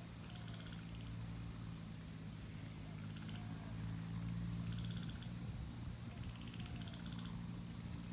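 Chorus of frogs and insects: short pulsed trills that recur every second or two, with a faint high insect buzz, over a low steady hum.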